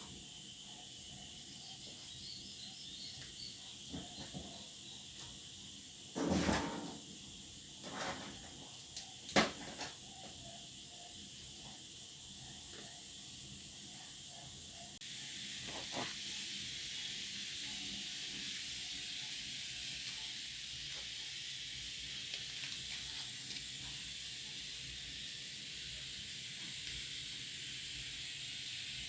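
Steady high hiss with a few scattered clicks and knocks, the loudest about six and nine seconds in; the hiss gets a little louder about halfway through.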